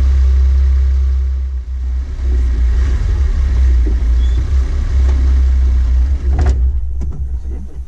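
Safari vehicle driving along a dirt track through grassland: a loud, low rumble of engine and road noise.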